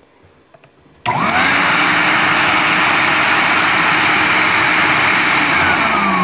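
Filter Queen vacuum cleaner switched on about a second in with a click, its motor spinning up with a rising whine and then running loud and steady; near the end it is switched off and the pitch starts falling as the motor winds down. The repaired switch is now completing the circuit.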